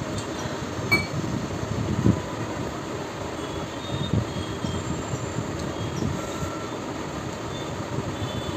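Close-miked chewing and mouth sounds of a person eating rice and kidney-bean curry, with a couple of sharper clicks about one and two seconds in.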